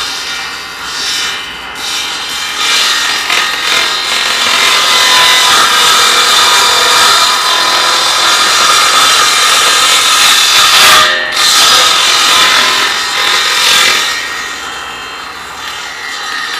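Homemade bench saw (a circular saw mounted under the table) running and cutting as a crosscut sled is pushed through the blade, sawing through the sled's pine batten fence and Eucatex hardboard base. The whine and cutting noise fall off over the last few seconds as the sled is drawn back.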